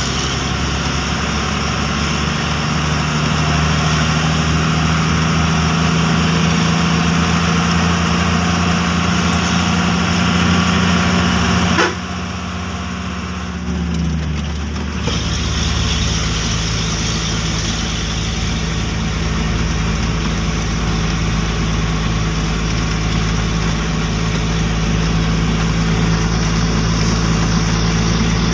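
A heavy truck's engine running steadily under way, heard from inside the cab. About twelve seconds in there is a click and the engine sound drops for a few seconds, its note falling, before it settles back to a steady run.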